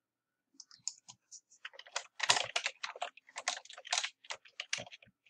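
Keystrokes on a computer keyboard: a few scattered key presses starting about half a second in, then a quick, steady run of typing.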